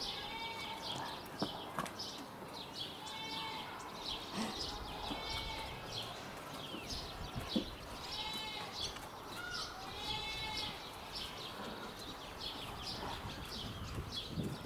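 Faint animal calls: short rising-and-falling cries repeated every one to three seconds, over many small high chirps like small birds.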